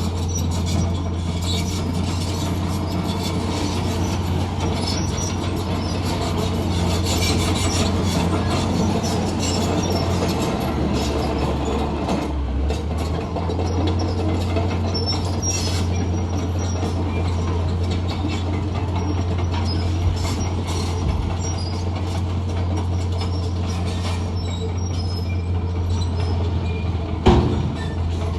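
Heavy diesel earthmoving machinery running steadily, with metallic rattling and clanking over the engine's low drone and a sharp knock near the end.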